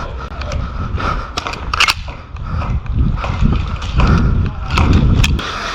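Airsoft guns firing during a game: a handful of sharp, isolated cracks over a steady low rumble of movement and handling on the microphone.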